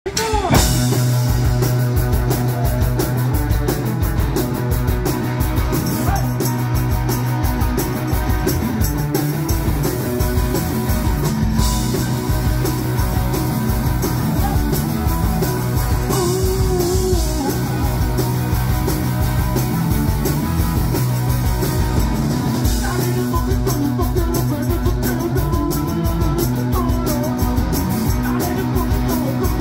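Punk rock band playing live: distorted electric guitars, bass and drums at a fast, steady beat, with a singer shouting the vocals into the microphone.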